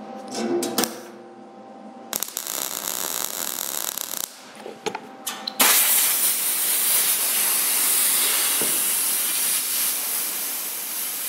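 MIG welder arc crackling and hissing as it tacks a sheet-steel patch panel into a tractor fender, with the voltage just turned down a little after blowing a hole through the thin metal. A burst of about two seconds comes first, then a longer, louder run starts about halfway through.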